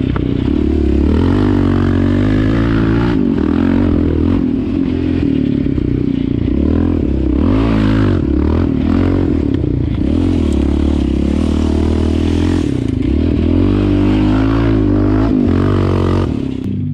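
Yamaha Raptor 700 quad's single-cylinder four-stroke engine being ridden hard, its note rising and falling repeatedly with throttle on and off. The engine sound cuts off suddenly near the end.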